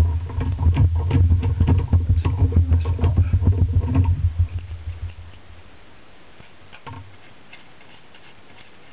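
Rapid clicks and scraping of a small tool against the metal case of a chassis power supply, over a low rumble of handling carried through the table into the camera. It dies down about five seconds in, leaving a faint click about seven seconds in as a small screwdriver works a case screw.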